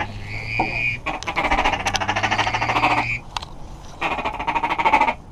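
Goose calling in three long, raspy, rattling bursts, about a second, two seconds and a second long.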